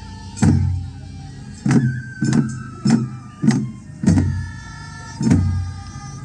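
Japanese festival hayashi from the floats: taiko drums struck in a steady beat about every half second to second, the biggest strikes deep and booming, with a high held melody running over them.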